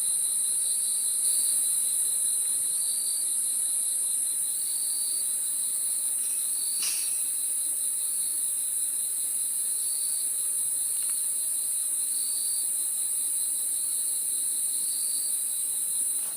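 Insects chirring steadily: a continuous high trill over a lower chirp that repeats every second or two. A single brief click sounds about seven seconds in.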